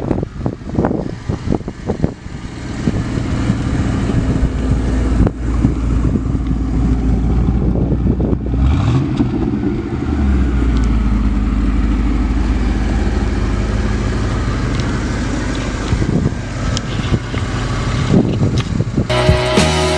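1984 Chevrolet Camaro Z28's 5.0-litre V8 running as the car drives off, the engine note rising in pitch about eight seconds in, then settling to a steady low drone. Music begins near the end.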